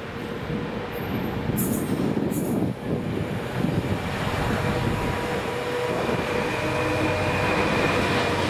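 GB Railfreight Class 66 diesel locomotive's two-stroke engine running as it hauls a train of loaded coal hopper wagons past, growing louder as it comes close.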